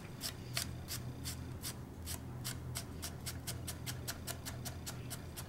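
Chef's knife dicing apple matchsticks into brunoise on a wooden cutting board: a steady run of quick chops, about three a second at first, quickening to about five a second in the second half.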